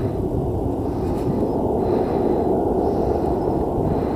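Boeing 767-300's twin turbofan engines at takeoff thrust during the takeoff roll: a steady low rumble.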